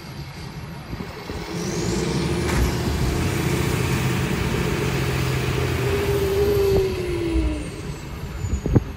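Truck engine working hard under load as it tows a mobile home. It swells about a second in, with a high whine that climbs quickly and then slowly falls away. The engine eases off near the end, and a couple of sharp knocks follow.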